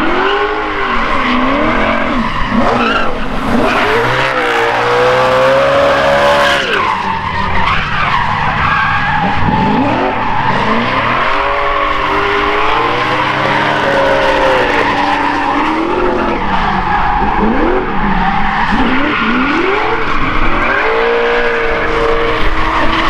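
Two BMW drift cars, a V8 E39 and an E36, drifting in tandem: the engines rev up and fall back again and again, every couple of seconds, over a steady hiss of sliding, squealing tyres.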